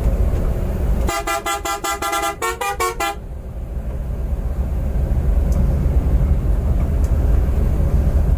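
A vehicle horn sounds a fast run of short pulsing blasts for about two seconds, starting about a second in, with the last few blasts lower in pitch. Under it is the steady low drone of a Scania coach's engine and road noise.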